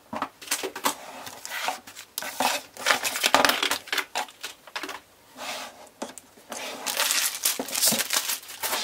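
Makeup boxes and packaging being lifted out of a drawer by hand: irregular rustling and crinkling of cardboard and plastic, with light knocks and clatter as items are picked up and set down.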